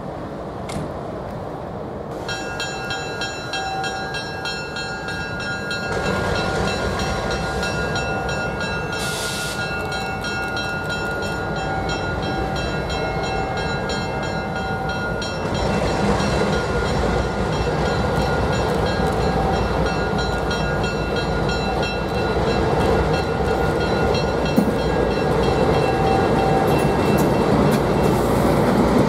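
A pair of MLW FPA diesel cab units pulling a passenger train away, the engines' rumble growing steadily louder as the train comes closer. A steady multi-note horn chord sounds from about two seconds in for roughly thirteen seconds, then carries on more faintly.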